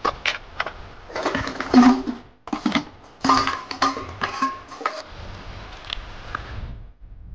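Background music with percussive hits and short held notes, quieter in the last couple of seconds.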